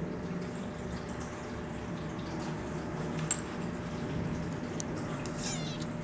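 Steady low hum of room noise with a few faint light clicks and ticks, one sharper click about halfway through and a quick flurry of fine ticks near the end.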